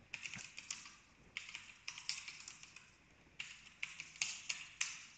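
Typing on a computer keyboard: quick runs of keystrokes in three short bursts with brief pauses between them.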